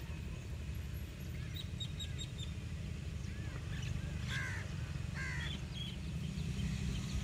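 A bird calls twice, about four and five seconds in, with a few faint high chirps earlier, over a steady low rumble.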